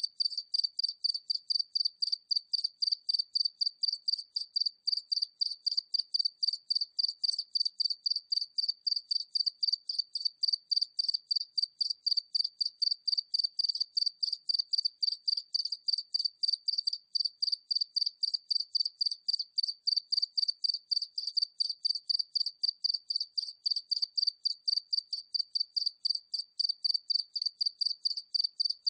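A single cricket chirping steadily from medium distance, a high pure tone repeated in even chirps about three times a second.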